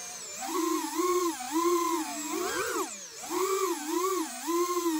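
FPV quadcopter's brushless motors and propellers whining, heard through the onboard air unit's microphone. The pitch rises and falls about every half second with the throttle, with one quick climb and drop about two and a half seconds in.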